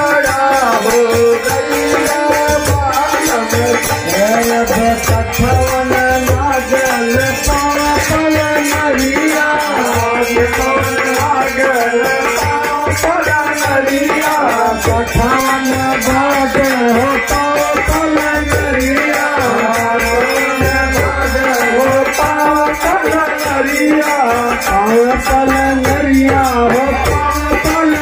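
Men singing a Bhojpuri Holi folk song (phagua) into microphones, with small brass hand cymbals clashing in a steady, fast rhythm.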